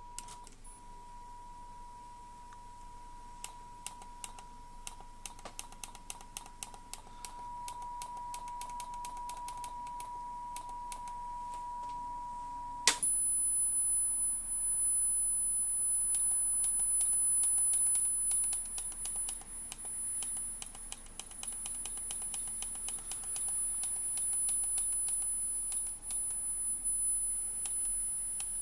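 Steady calibration test tones heard through a cassette deck while its record settings are adjusted for Type I tape: a mid-pitched tone that switches abruptly about halfway through to a high-pitched tone, with many scattered light clicks throughout.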